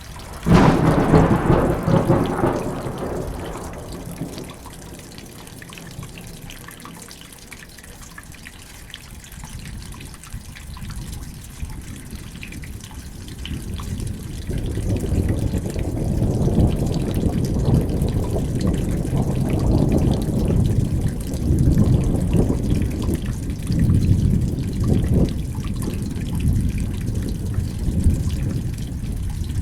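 Thunderstorm with rain: a sharp thunderclap about half a second in that rumbles away over a few seconds, then steady rain, and from about halfway a long low rolling rumble of thunder that swells several times.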